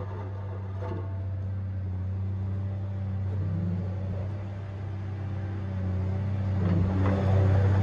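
Tigercat 870C feller buncher's diesel engine running with a steady low hum, getting louder about seven seconds in.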